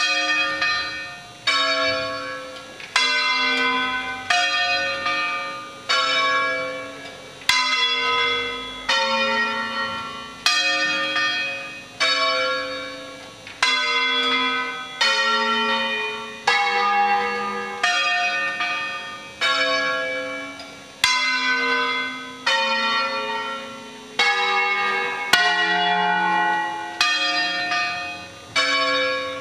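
A peal of electrically rung church bells sounding a solemn signal: several bells of different pitches strike one after another, roughly a stroke a second, each note ringing on and dying away as the next one hits.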